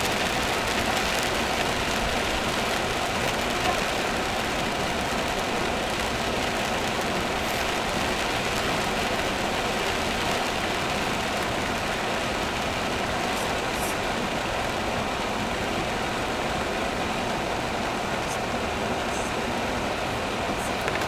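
Car driving through heavy rain: a steady noise of rain pounding down and tyres hissing on the flooded road.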